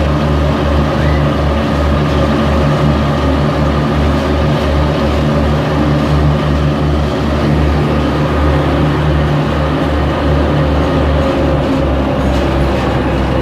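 Diesel locomotive running steadily as it leads a train through a tunnel, heard from an open car behind it: a loud, continuous low throb pulsing about three times a second, with a steady hum over it.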